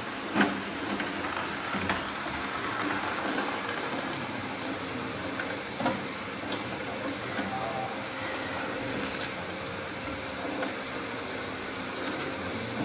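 Radio-controlled model construction machines working: a steady hum of small electric motors and gearboxes, broken by a few sharp knocks, the loudest about half a second in and another near six seconds.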